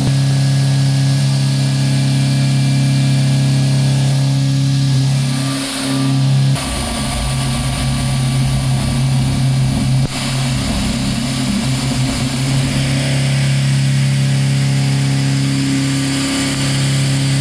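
Kennametal HARVI I TE end mill cutting 316 stainless steel on a CNC machining center: a loud, steady, low cutting tone. From about six and a half to thirteen seconds in, the sound turns rougher and noisier.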